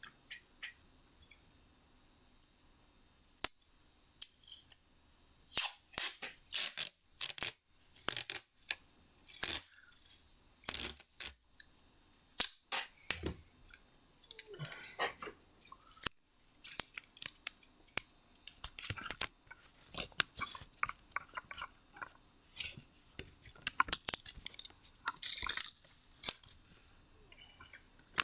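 Cheap adhesive tape being pulled off its roll and torn in many short, irregular rips, with handling noises in between.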